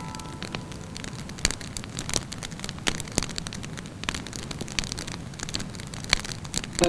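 Wood fire crackling in a fireplace: a constant soft hiss with irregular snaps and pops, a few louder ones standing out, about a second and a half in, near the middle and near the end.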